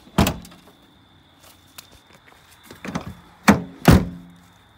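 Vehicle's rear liftgate being pushed shut: one heavy thunk at the start, then three more in quick succession about three seconds in, the last two the loudest. The gate still doesn't close right.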